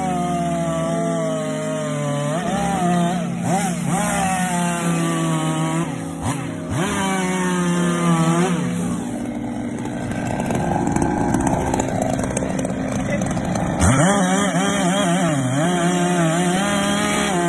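Petrol chainsaw running and cutting into the trunk of a willow tree, with background music over it.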